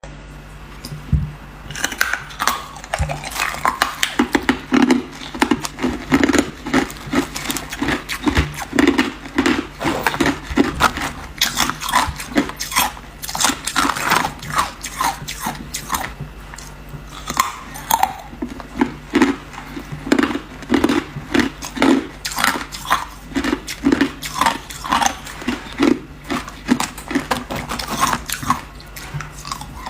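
A person biting and chewing hard ice, a fast irregular run of crisp crunches that starts about a second and a half in, over a steady low hum.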